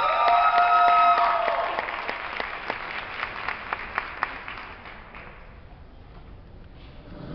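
Crowd applauding, with a few high, held cheers over it at first. The clapping thins out and dies away about five seconds in.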